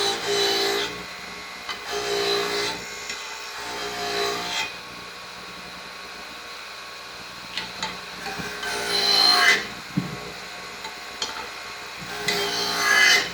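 Electrical tape being pulled off the roll in short, screechy strips and wrapped onto the handles of a pair of pliers, with pauses between pulls.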